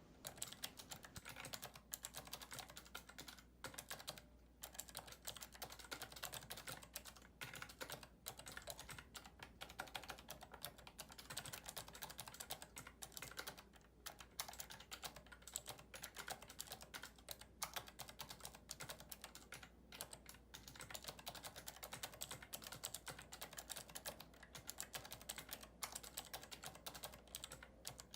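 Fast typing on a prototype ergonomic keyboard with Cherry MX Blue key switches, each keystroke giving that switch's click, in a dense steady run broken by a few brief pauses.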